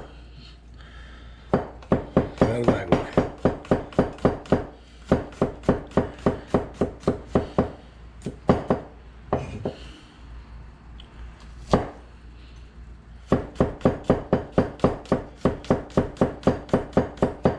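A kitchen knife thinly slicing garlic cloves on a cutting board: quick, even runs of chops, about four a second, broken by short pauses with a few single chops.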